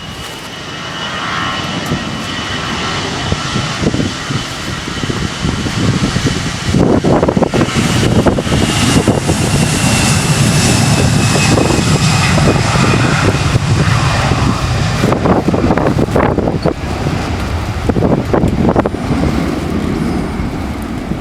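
Jet airliner passing, its engines making a high whine that slowly falls in pitch over a deep rumble, growing to its loudest about halfway through. Gusts of wind buffet the microphone throughout.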